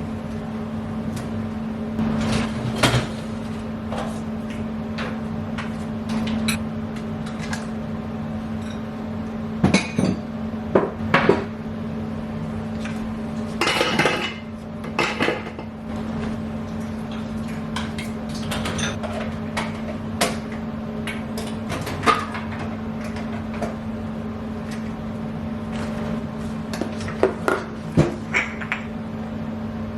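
Dishes, glasses and silverware clinking and knocking as a dishwasher is unloaded and the items are put away, in scattered clatters with louder bursts about ten, fourteen and twenty-eight seconds in, over a steady low hum.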